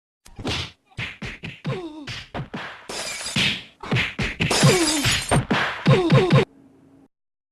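A sound-effect clip of rapid whacks and crashes, many sharp hits in a row mixed with short falling cries, lasting about six seconds and stopping suddenly.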